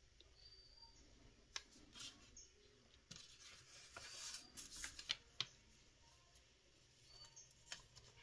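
Faint handling noise at a craft work table: a few light clicks and taps of small objects being picked up and set down, with a short rustle about three to five seconds in.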